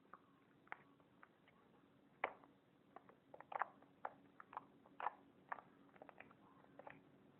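Slime being squished and poked by hand: a quiet, irregular run of small wet clicks and pops, most of them bunched in the middle.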